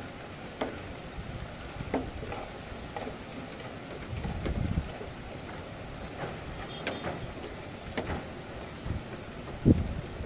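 Thunderstorm wind and rain: a steady rushing hiss with scattered sharp taps, and gusts buffeting the microphone about four seconds in and again near the end.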